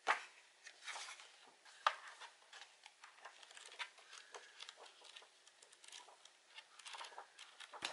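Pages of a paperback book turned and rustled by hand, faint light paper flicks and slaps; near the end the pages are fanned quickly in a fast run of flicks.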